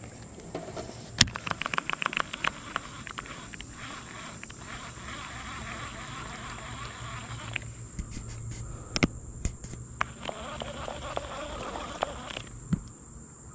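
Insects buzzing steadily in two long spells. A quick run of clicks about a second in, and scattered sharp clicks later, come as a Lew's Speed Spool baitcasting reel is wound.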